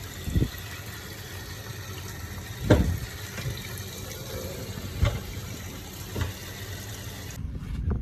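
Steady rush of running water that cuts off suddenly near the end, with a few dull thumps along the way.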